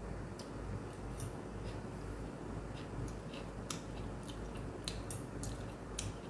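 A person chewing food, with scattered soft wet mouth clicks over a steady low room hum.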